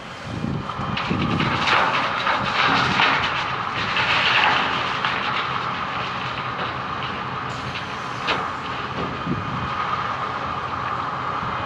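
Wirtgen W210i cold milling machine at work, its engine and milling gear running with a dense, steady mechanical noise that swells over the first few seconds. One sharp clank comes about eight seconds in.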